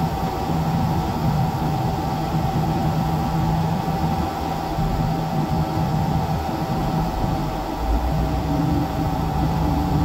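Heavy diesel engine of a crane running steadily with a constant hum, heard from inside the operator's cab. A deeper rumble swells briefly about eight seconds in.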